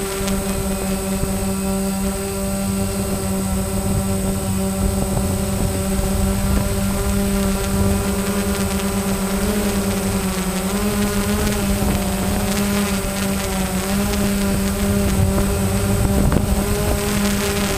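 DJI Phantom quadcopter's motors and propellers giving a steady buzzing hum in flight, the pitch wavering slightly in the second half as the drone moves.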